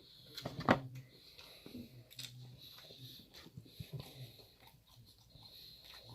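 A person eating close to the microphone: small mouth clicks and chewing sounds, with one sharp, loud click or crunch under a second in.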